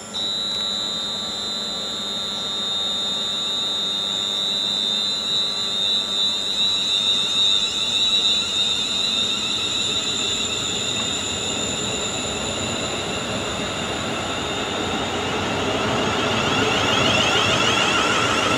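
Class 350 Desiro electric multiple unit running along the platform: a steady high-pitched whine over the rolling rumble of wheels on rail, which grows louder, with rising tones joining near the end.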